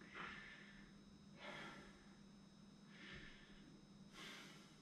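Faint, deep breaths of a man catching his breath after a hard set of step-ups, one breath about every second and a half, four in all.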